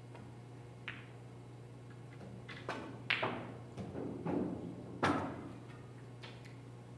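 A pool shot: a light tick of the cue tip on the cue ball, then a series of sharp clacks and knocks as the billiard balls strike each other and the cushions, the loudest about three and five seconds in. A steady low hum runs underneath.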